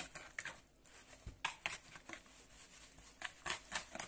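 Wire whisk beating runny batter in a plastic bowl: quick irregular clicks and taps of the wires against the bowl, with wet slapping of the mix.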